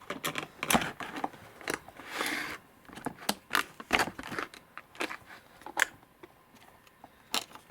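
Stiff plastic clamshell packaging being handled as a model locomotive is popped and slid out of it: irregular clicks and taps of plastic with some crinkling, with a short rustle about two seconds in.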